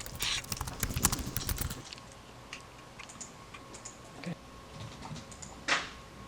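Rapid light clicks, dense for about the first two seconds and then scattered and slower, with one louder short rustle near the end.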